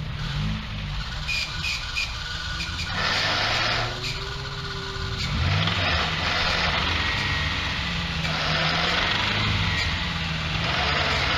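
Off-road vehicle engine running and revving up and down, with several bursts of rushing noise over it.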